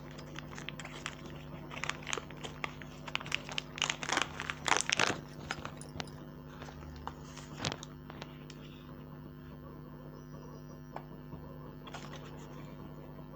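Custard-powder packet being torn open and crinkled: a run of crackling rustles, loudest about five seconds in, that dies away after one last click near the eight-second mark.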